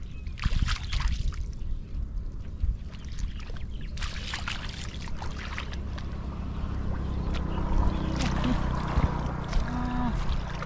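Feet wading through shallow floodwater and soft mud, splashing and squelching in bunches of quick strokes, over a steady low rumble.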